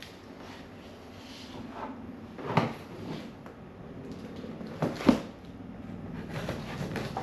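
A long cardboard box being shifted and handled on a plastic folding table: rustling and scraping with a knock about two and a half seconds in and a louder double knock about five seconds in.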